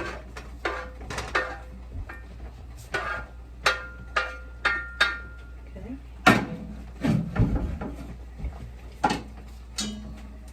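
A metal spoon clinking and knocking against cookware in a run of short strikes, some ringing briefly, with the loudest knocks about six to seven seconds in.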